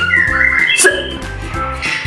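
Male white-rumped shama singing short clear whistled phrases that slide in pitch, over background music with a steady beat.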